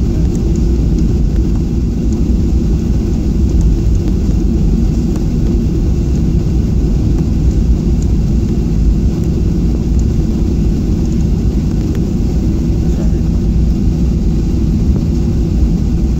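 Steady low drone of a Boeing 737's jet engines and airflow, heard from inside the cabin while the airliner is on the ground before takeoff.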